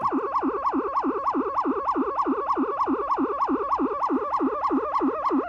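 MFOS Noise Toaster analog synthesizer's oscillator, modulated by both its LFO and its repeating attack-release envelope, giving a siren-like warble: one electronic tone sweeping rapidly up and down about four times a second.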